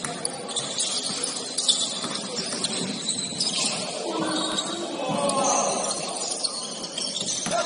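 Basketball shoes squeaking on a gym court during play, with players' voices calling out in the middle of the stretch.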